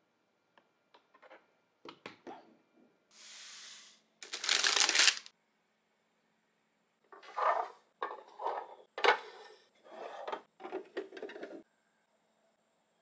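Hard plastic being handled: light clicks, a short smooth swish, then a loud rasping slide about four seconds in. After that comes a run of scrapes and clacks as the plastic drawers of a small stacking storage box are pulled out.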